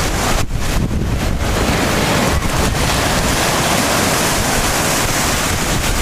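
Sea surf washing up and back on a sandy shore, with strong wind rumbling on the microphone. The hiss of the wash swells about two seconds in and holds.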